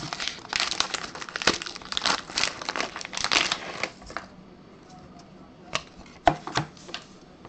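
Trading-card pack wrapper crinkling and tearing as it is opened, for about four seconds. Then a few light clicks as the hard plastic slab of a graded card is handled.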